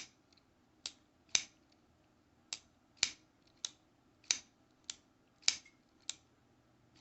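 Button-lock folding knife being fidgeted open and shut: a string of about ten sharp metallic clicks as the blade snaps into its lock and is released and closed, often in pairs half a second apart.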